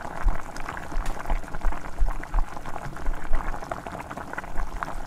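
Bubbling and crackling from a pot of chicken cooking, a steady noise full of irregular small pops, with low thumps scattered through it.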